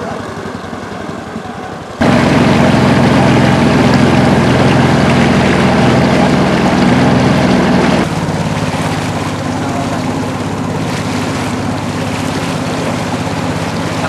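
Long-tail boat motor running steadily at speed, its propeller driving a wooden river boat. It gets much louder suddenly about two seconds in and drops to a lower level about eight seconds in.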